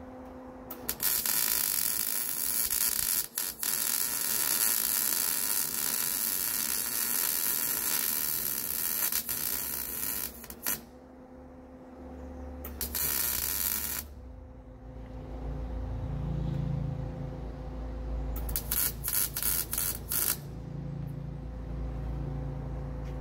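Wire-feed (MIG) welder arc crackling and sizzling as brackets are welded onto a steel air tank, in three runs: a long one of about ten seconds starting about a second in, a short one just past the middle, and a two-second one near the end. A steady low hum sounds between the runs, and a low rumble comes in during the second half.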